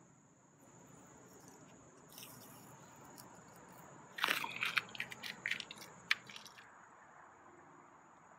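Tape being peeled off a painted outboard cowling and handled: a run of sharp crackles about four seconds in, lasting two seconds. A steady high insect drone runs underneath.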